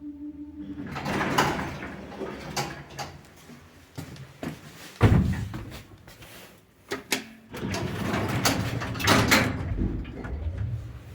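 1992 KMZ 400 kg passenger lift's doors sliding and clattering, with squeaking and a sharp bang about five seconds in.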